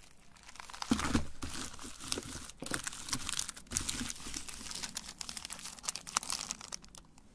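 Chocolate bar wrappers crinkling as hands handle them, a dense run of small crackles that starts about a second in and dies down near the end.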